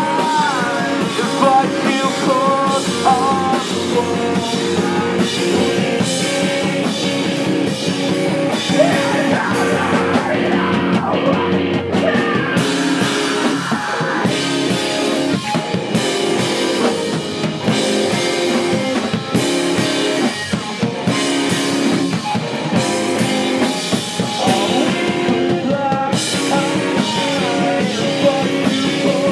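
Rock band playing live: drum kit and electric guitars, loud and steady throughout.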